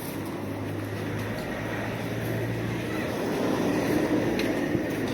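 A motor vehicle running close by amid street noise, with a low steady hum, its sound swelling about three to four seconds in as it passes.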